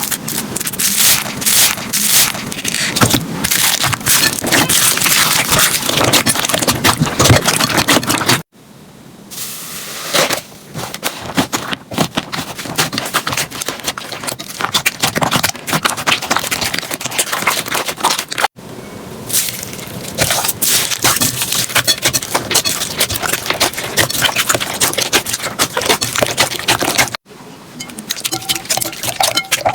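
Slime being squeezed, poked and pressed by hand, giving dense crackling and popping clicks. It comes as several clips cut together, with abrupt changes about 8 seconds in, about 18 seconds in and near the end.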